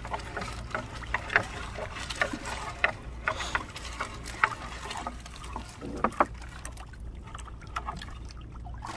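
Gill net being hauled by hand over the side of a wooden outrigger boat: water dripping and splashing off the net, with scattered small clicks and knocks of net and floats against the hull, over a steady low rumble.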